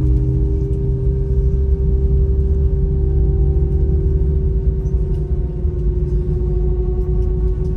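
Airbus A319's IAE engines running at low power before takeoff, heard from inside the cabin as a loud steady rumble with a humming tone that drifts slightly lower.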